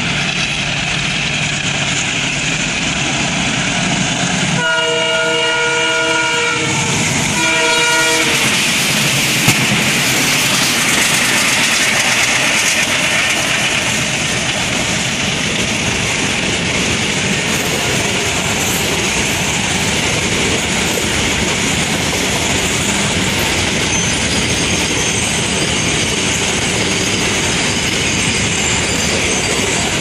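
Twin ALCO WDM-3D diesel locomotives, with ALCO 251 V16 engines, sounding their multi-tone horns: a blast trailing off at the start, a longer one about five seconds in and a short one near eight seconds. The locomotives then chug past under power, followed by a long rake of covered goods wagons rolling by, wheels clacking over the rail joints.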